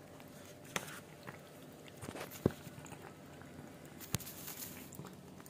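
A cat eating wet food from a steel bowl: faint chewing and licking, with a few sharp clicks, the loudest about four seconds in.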